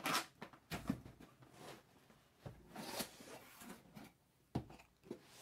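Cardboard box being opened by hand: a short zip at the start as the tape is slit, then the cardboard scraping and rubbing as it is pulled open, with a knock about four and a half seconds in.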